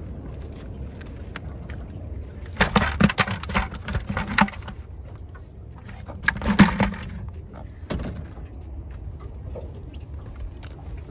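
Two bursts of clattering knocks and clicks, the second shorter, then a single knock, over a steady low rumble.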